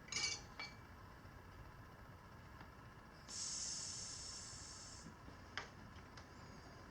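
Light metallic clinks of steel tire irons working a stiff knobby tire bead onto the rim, then a hiss that starts suddenly about three seconds in and fades out over nearly two seconds, followed by one more sharp click.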